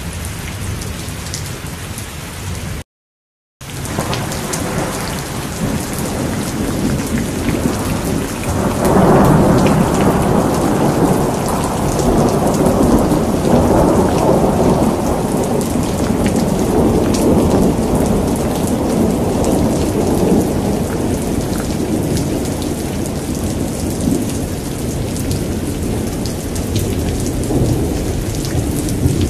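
Thunderstorm: steady heavy rain with sharp drop ticks. The sound cuts out completely for under a second about three seconds in. About nine seconds in, a long roll of thunder builds and rumbles on, slowly fading over more than ten seconds.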